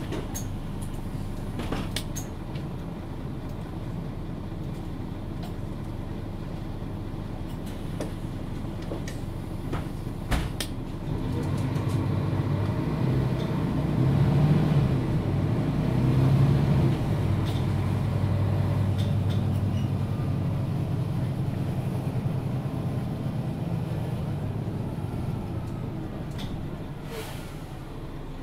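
Mercedes-Benz O530 Citaro Facelift G articulated bus heard from inside: the engine runs steadily at low revs with a few sharp clicks and knocks. About eleven seconds in, the engine comes under load and grows louder as the bus accelerates, then eases off near the end.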